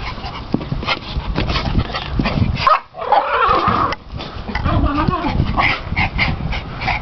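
Small dogs vocalising, with high, wavering whines about three seconds in and again around five seconds, over a steady scuffing rustle.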